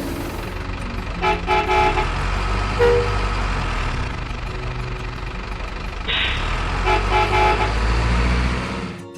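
Truck engine running steadily, with two short horn blasts, one about a second in and another about seven seconds in. The engine sound cuts off suddenly near the end.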